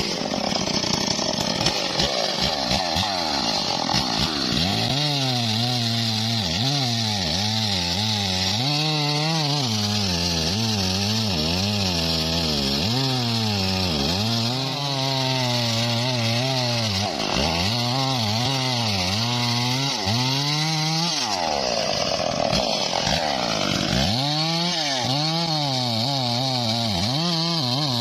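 Homemade bandsaw mill sawing a teak log, its engine running under load. The engine pitch wavers up and down again and again, over a steady high hiss.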